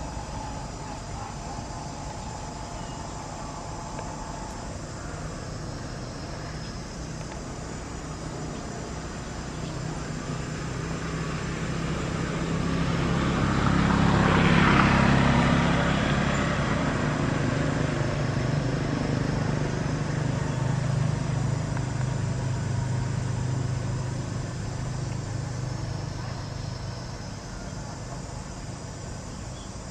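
Engine of a passing motor vehicle: a low hum that grows louder over several seconds, is loudest about halfway through, then slowly fades away.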